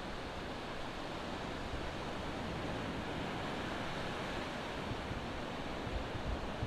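Ocean surf breaking and washing up the beach: a steady, even hiss of waves. A few low wind bumps on the microphone near the end.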